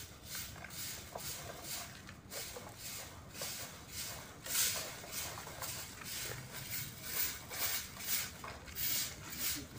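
Rhythmic swishing, scratching brush strokes, roughly two a second and uneven in strength, of a brush worked against a wall or pavement.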